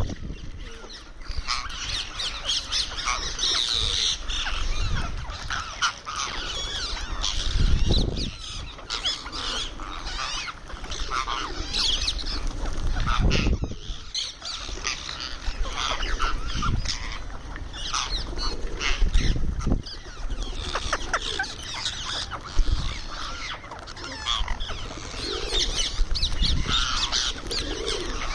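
Indian ringneck parrot calling while feeding: a steady run of raspy squawks and chattering calls, with a few low bumps now and then.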